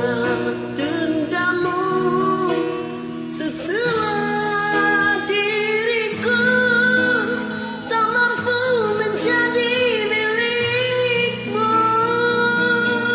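A woman singing a slow, long-held melody over an instrumental backing track.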